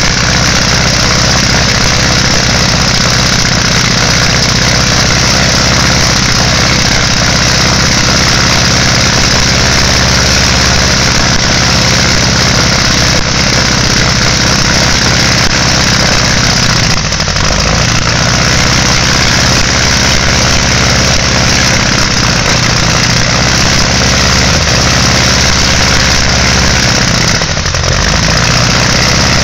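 Lycoming O-290 four-cylinder air-cooled aircraft engine on a test stand running steadily and loudly with its propeller turning, on its first run-up after overhaul. The sound dips briefly twice, a little past halfway and near the end.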